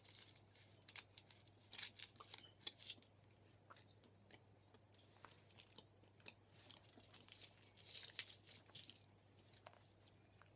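Foil wrapper of a Hershey's Kiss being pulled off by hand: faint crinkling and crackling, busiest in the first three seconds and again about eight seconds in.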